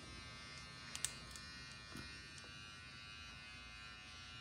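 Faint, steady buzzing hum in a small room, with a couple of light clicks about one and two seconds in.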